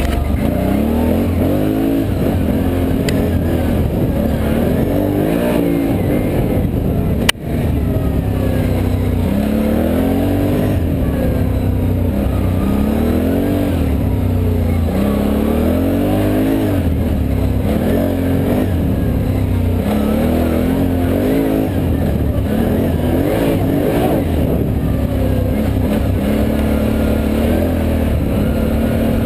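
Can-Am Renegade ATV engine running under way on a dirt trail, its pitch rising and falling over and over as the throttle is opened and eased. A single sharp knock comes about seven seconds in.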